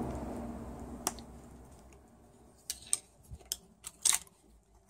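Small plastic clicks and snaps from wiring-loom connectors being unclipped and pulled off the shift solenoids of an automatic transmission's valve body. There is a single click about a second in, then a scattered run of sharp clicks; the loudest is about four seconds in.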